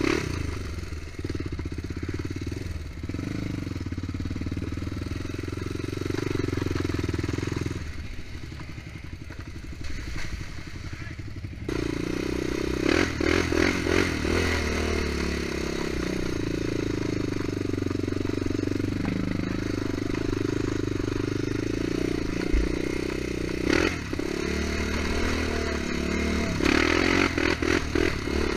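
Honda TRX400EX quad's single-cylinder four-stroke engine running on a rocky trail, with rattles and knocks from the machine over the rocks. The engine eases off about 8 seconds in and picks up again about 12 seconds in.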